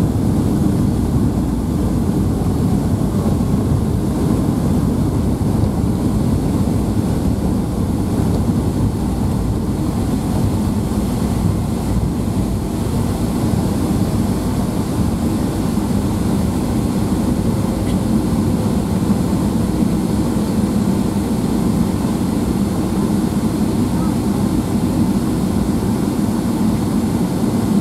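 Steady rumble inside the cabin of a Boeing 757-200 as it rolls along the ground after landing, with the engines and the rolling gear blended into one even noise.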